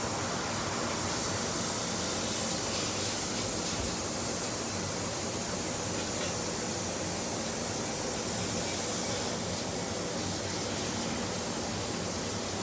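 Hot cooking oil sizzling steadily as food fries, with a few faint crackles.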